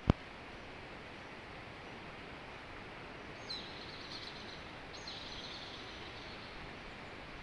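A sharp knock right at the start, then a bird gives two high-pitched calls of about a second each, the second starting about a second and a half after the first, over a steady background hiss.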